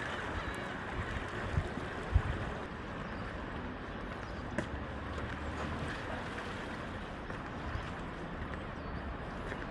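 Strong wind rushing steadily around a parked car, heard from inside the cabin, with two low thumps about one and a half and two seconds in.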